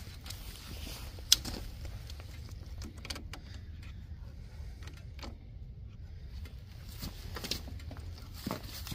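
Scattered clicks and light rattles of metal jumper-cable clamps being handled and clipped onto a mower's battery connections, with one sharp click about a second in, over a low steady rumble.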